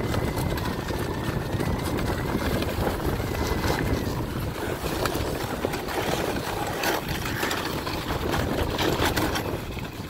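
A sled's runners sliding and scraping over packed snow during a fast downhill ride, with wind rushing over the microphone. The noise is steady and low, broken by many short crunches and scrapes.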